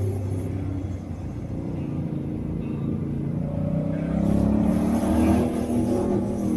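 Engine of a Honda Shadow 125 motorcycle, a small 125 cc V-twin, running under way, easing off slightly about a second in, then pulling harder and rising in pitch from about four seconds in.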